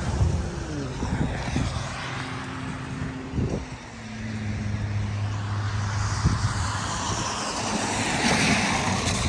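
Road traffic going by: vehicle engines humming and dropping in pitch as they pass, with tyre hiss on wet pavement that swells near the end.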